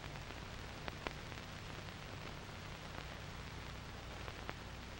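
Steady hiss and low hum of an old film soundtrack, with a few faint clicks of crackle, two about a second in and two near the end.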